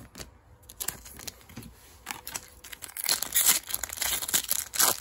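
Crinkling and rustling of a foil Yu-Gi-Oh booster pack wrapper being handled, with light clicks of cards, rising to a dense crinkle about three seconds in and again near the end.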